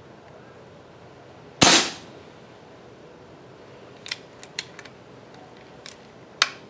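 A .25-calibre Evanix Rainstorm II PCP air rifle, regulated by a Huma regulator, fires one shot about a second and a half in: a sharp crack with a short tail. Several light clicks follow about 4 to 5 seconds in, and a second sharp snap comes near the end.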